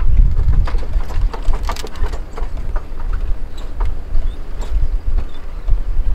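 A vehicle driving over a rough road: a steady low rumble with frequent short knocks and rattles.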